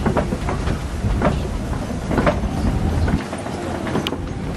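Open-sided safari ride truck driving along, a low rumble with irregular rattles and knocks from its body. The low rumble eases about three seconds in.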